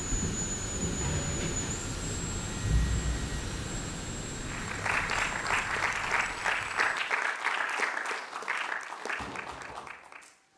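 A low rumble with a faint steady high tone, then about five seconds in an audience starts applauding; the clapping goes on for about five seconds and dies away near the end.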